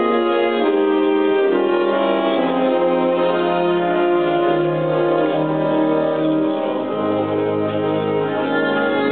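Military symphonic wind orchestra playing a slow passage of long held chords, brass to the fore, with the bass line stepping down in pitch a few times.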